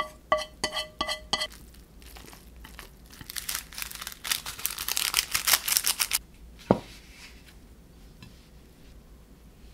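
A few sharp ringing knocks from the frying pan as the noodles are tipped out. Then a plastic instant-noodle seasoning sachet is torn open and crinkled as it is shaken out, in a dense crackle that stops about six seconds in. A short tone sliding steeply down in pitch follows.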